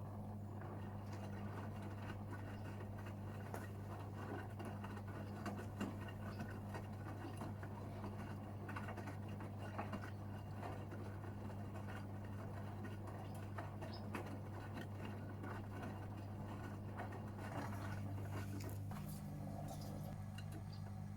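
Gorenje UseLogic 65165 washing machine mid-cycle: the drum turning, with wet laundry and water patter and small clicks over a steady motor hum. The hum changes slightly about nineteen seconds in.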